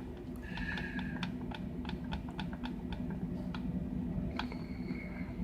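Light plastic clicks, about three a second, from the control buttons of a ViewSonic CRT monitor being pressed repeatedly to step the convergence setting, over a low steady hum.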